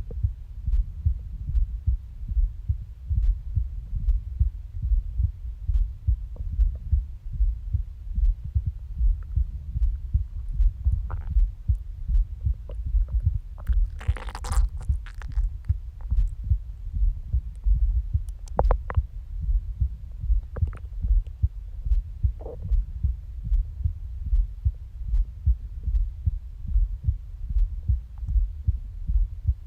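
A human heartbeat picked up close to the body, low thuds repeating steadily. A few brief stomach noises rise over it, the loudest about halfway through.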